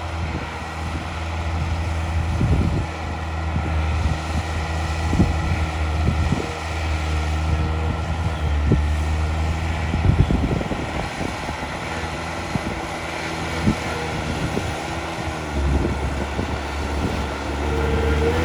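Heavy earthmoving machine's diesel engine running steadily, with scattered clanks and knocks and a shift in engine speed near the end.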